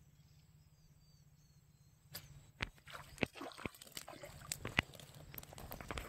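A hooked eel splashing and thrashing at the water's surface as it is hauled in on a fishing rod, then landed on the bank. It starts about two seconds in as a run of sharp splashes and knocks.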